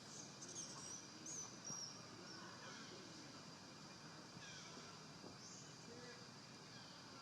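Faint high-pitched animal chirps or squeaks, a few short ones in the first two seconds and a couple more about halfway through, over a quiet steady hiss.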